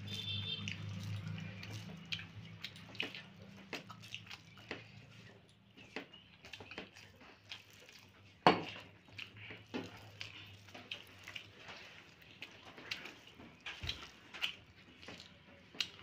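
Scattered light clicks and taps of plates and utensils while people eat, with one sharper knock about halfway through.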